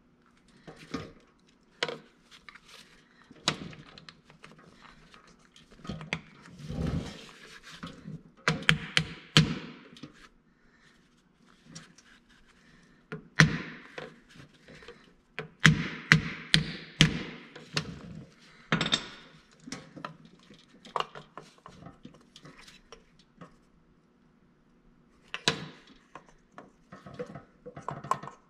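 Hammer tapping a pin back into a Bennett trim tab actuator through a punch: irregular runs of sharp metal knocks and clinks, in several bursts with pauses between them.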